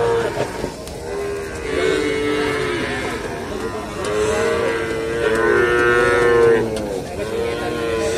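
Young pegon calves bawling: several long, fairly high-pitched moos one after another, some overlapping.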